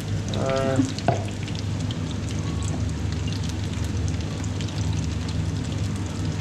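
Battered fish fillets deep-frying in hot oil: a steady sizzle peppered with small crackling spits. A short squeak and a sharp knock come about a second in.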